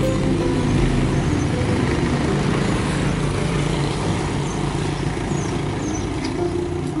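Road traffic: the engines of several cars and trucks running on a busy street, a steady din of engines and road noise.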